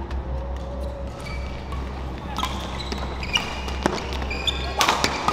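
Badminton play in a sports hall: sharp racket-on-shuttlecock strikes and sneakers squeaking on the court floor, over a steady low hum. A quick run of sharp clicks near the end is the loudest moment.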